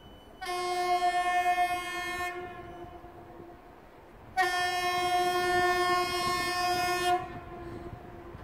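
2TE116 diesel locomotive's horn sounding two blasts, a shorter one of about two seconds and then a longer one of about three seconds, each a single steady tone that lingers faintly as it dies away.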